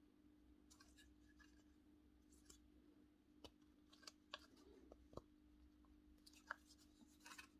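Scattered faint clicks and light taps of a power-tool motor's plastic brush-holder end and metal field coil being handled and pressed together as the new field is fitted, over a faint steady hum.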